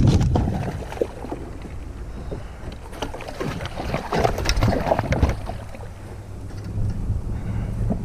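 Wind buffeting the microphone out on the water in a kayak, a steady low rumble, with a cluster of small knocks and splashes around the middle.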